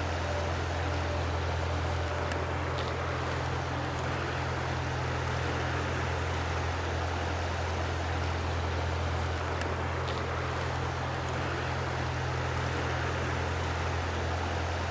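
Steady rush of a flowing mountain stream, with a constant low rumble underneath and a few faint ticks.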